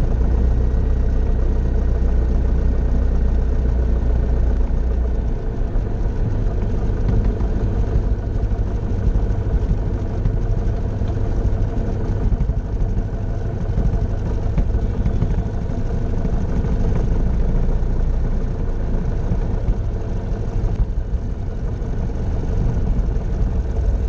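Grumman Tiger's 180 hp four-cylinder Lycoming piston engine and propeller running steadily at low power during the landing rollout and taxi, heard from inside the cockpit. Its deepest hum eases about five seconds in.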